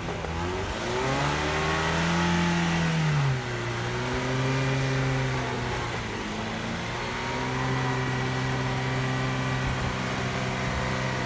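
Off-road 4x4's engine revving: the pitch climbs, drops sharply about three seconds in, climbs again and dips, then holds fairly steady for several seconds before falling away at the very end.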